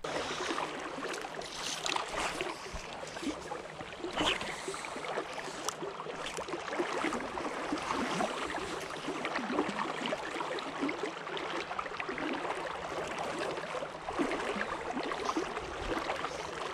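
Steady rush of a fast-flowing river, a dense wash of moving water close to the microphone.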